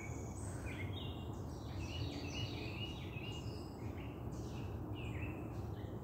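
Birds chirping: many short, high notes at several different pitches, over a steady low background rumble.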